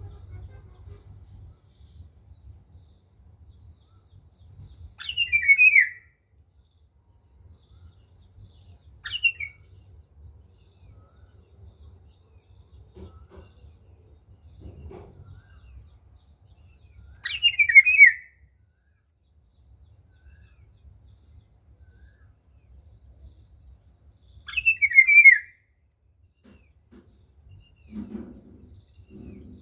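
A bird calling: a short, tumbling chirp of a few descending notes every several seconds, four times, over a faint low rumble.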